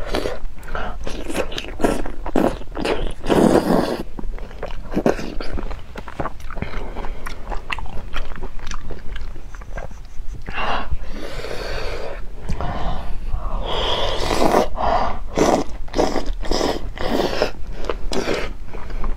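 Close-miked chewing and biting of chewy hotpot food such as pork large intestine, with irregular wet clicks and mouth sounds and a few longer, louder stretches.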